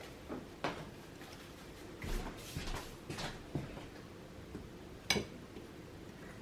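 Kitchen utensils and containers being handled: several separate clinks and knocks, a brief rustling stretch about two seconds in, and one sharp click about five seconds in.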